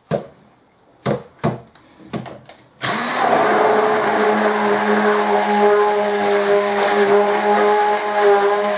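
A stick blender switches on about three seconds in and runs steadily with a motor hum, whizzing cold process soap batter until it comes together. A few brief sounds come before it starts.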